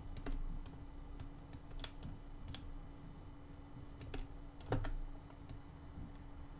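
Computer mouse and keyboard clicking at an irregular pace, about ten clicks, over a faint steady hum.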